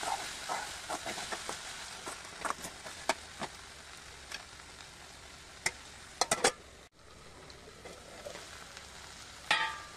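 Chopped okra with spices sizzling in oil in a pan while a spatula stirs it, with scattered clicks and scrapes of the spatula against the pan. The sound drops out for a moment about seven seconds in, and there is a louder scrape with some ring near the end.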